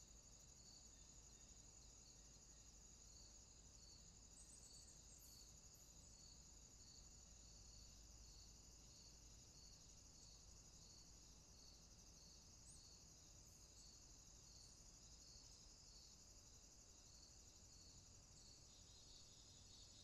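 Faint chorus of crickets: a continuous high trill, with a second, lower chirp repeating at an even pulse.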